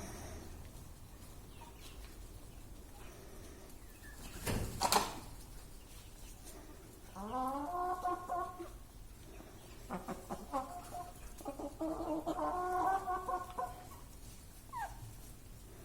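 Broiler chickens calling, with drawn-out calls about seven seconds in and again from about ten to fourteen seconds, the first rising in pitch. One short sharp sound about five seconds in.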